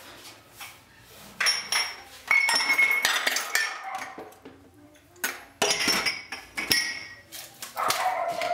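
Dishes and cutlery clinking and clattering as plates and utensils are handled at a kitchen counter, a run of sharp clinks starting about a second in.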